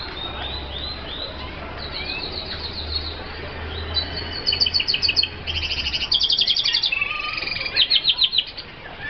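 Kapoetsensijs (red siskin) F1 finches singing: high twittering chirps that turn into loud, rapid trilled phrases about four seconds in, with a low hum underneath for the first two-thirds.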